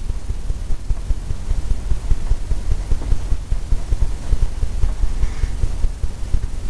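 Fan brush tapped over and over against a stretched canvas: a quick, irregular run of dull low thumps as paint is dabbed on.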